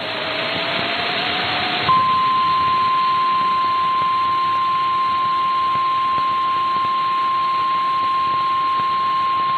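Static hiss from a weather-radio broadcast. About two seconds in, a single steady tone starts over the hiss and holds unchanged: the 1050-hertz NOAA Weather Radio warning alarm tone that precedes a warning message.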